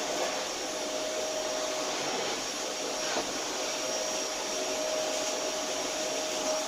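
Steady whooshing machine noise with a faint steady hum and a faint high whine, like an appliance running. There is one soft tick about three seconds in.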